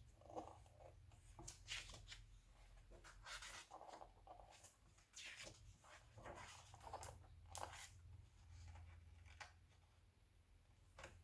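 Faint rustling and sliding of magazine pages being turned and handled, in short irregular bursts over a low steady hum.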